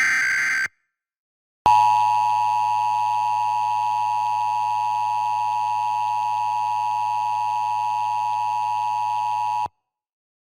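Emergency Alert System test tones: the tail of a SAME header data burst ends, and after about a second's pause the EAS attention signal, a steady two-tone alert tone, sounds for about eight seconds and cuts off abruptly.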